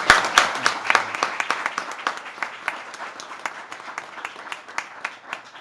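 A small group applauding, loudest at first, then thinning to scattered claps that stop near the end.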